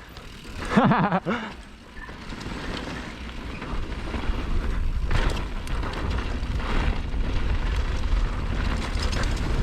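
Wind rumbling on the microphone and a mountain bike rolling fast down a dirt trail, growing louder from about two seconds in. A short voiced exclamation about a second in.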